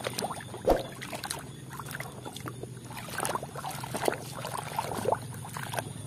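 A hand sloshing and scrubbing a plastic toy in a basin of muddy water, with small irregular splashes and one louder splash under a second in.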